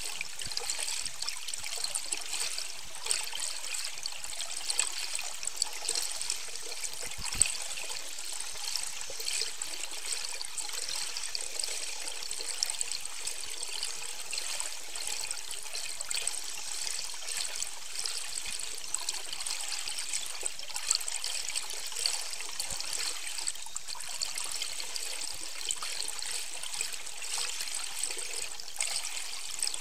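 Underwater ambient noise picked up by a boat-mounted underwater camera: a steady crackling hiss of water, with a sharper click about seven seconds in and another around twenty-one seconds.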